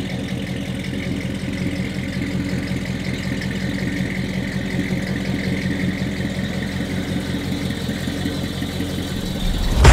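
Ford 302 V8 of a 1973 Mustang Mach 1, fitted with a four-barrel carburettor, idling steadily through its dual exhaust.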